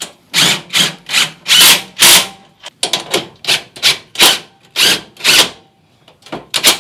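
Cordless drill-driver with a socket adapter spinning bolts tight to join steel racking uprights, run in short trigger bursts about twice a second.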